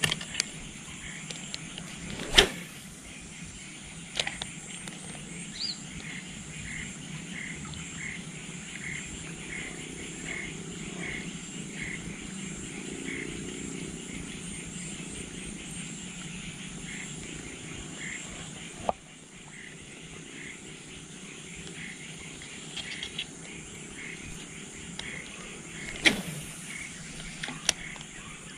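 Outdoor ambience: a steady low rush under a high insect buzz, with a chirping call repeating about twice a second through the middle. Two sharp clicks stand out, one about two seconds in and one near the end.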